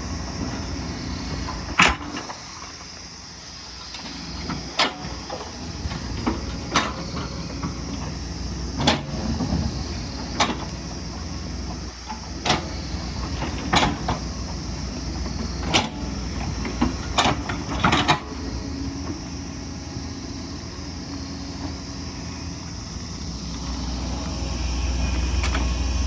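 Hydraulic excavator at work: its diesel engine runs steadily under sharp knocks every second or two, and the engine grows louder near the end.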